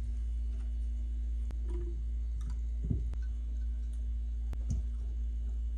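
A small bottle of turmeric ginger shot being handled and drunk from: scattered light clicks and two soft knocks over a steady low hum.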